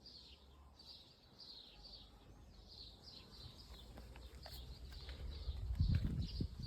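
Volkswagen Passat B8 interior squeaking strongly inside the cabin: short, high squeaks about two a second over the low rumble of the moving car, with heavy thumps from the road near the end.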